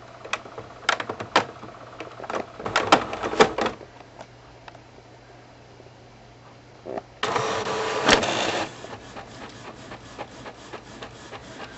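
HP DeskJet 3653 inkjet printer running its cleaning cycle for newly installed cartridges: a run of mechanical clicks and ticks, a low steady hum, then a loud whir lasting about a second and a half about seven seconds in, followed by faint ticking.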